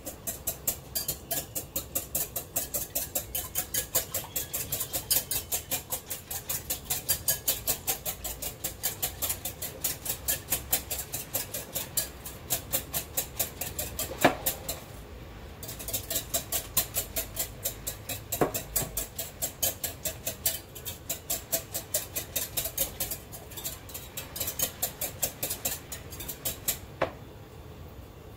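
Wire balloon whisk beating an egg mixture in a glass bowl: a quick, even clicking of the wires against the glass, about four strokes a second. There is one sharper knock and a short pause about halfway, and the clicking stops a second or so before the end.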